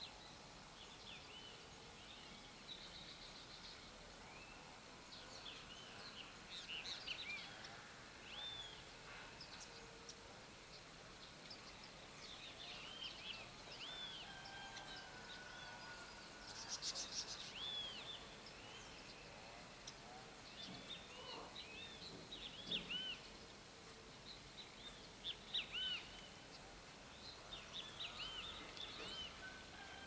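Small birds chirping faintly: many short, arched chirps, some in quick runs, scattered throughout over a steady outdoor hiss, from a flock of small seed-eating birds feeding on the ground.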